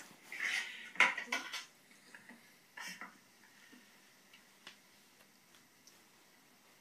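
A few brief rustles and soft knocks of handling in the first three seconds, the loudest about a second in, then quiet room tone with faint scattered ticks.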